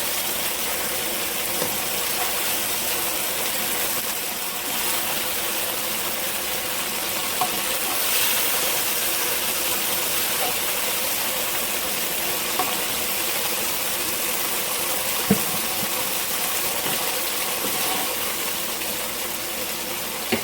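Chicken pieces sizzling steadily in hot olive oil in a frying pan as they are lifted out, with a few light clicks of a utensil against the pan.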